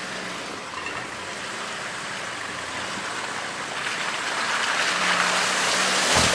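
A vehicle running, with a rushing hiss that builds louder over the last couple of seconds.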